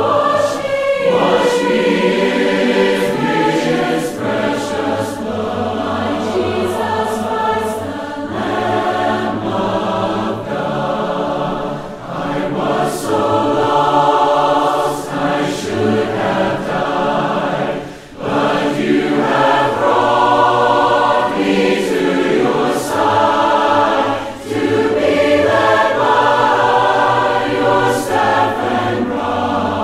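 A cappella vocal group singing a gospel song in close harmony: several voices with no instruments, the phrases separated by short breaths.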